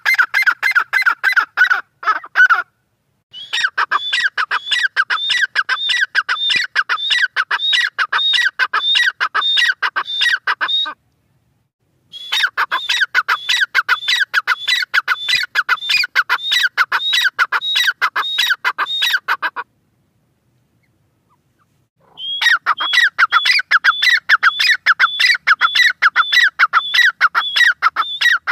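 Grey francolin calling: a fast series of shrill repeated notes, several a second, in long bouts broken by three short silences.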